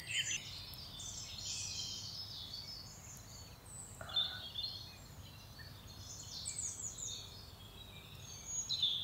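Songbirds chirping and calling on and off in the woods, many short high notes and quick sweeps over a faint steady background hiss. One short, lower sound stands out about four seconds in.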